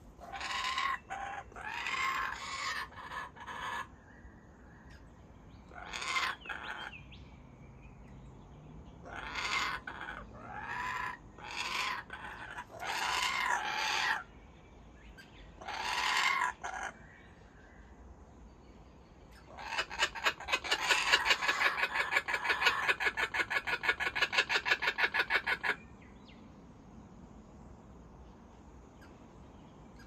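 Laughing kookaburra calling: a series of rising chuckling phrases that build into a long, loud, rapid run of laughing notes about twenty seconds in. The laughing run lasts about six seconds and then stops abruptly.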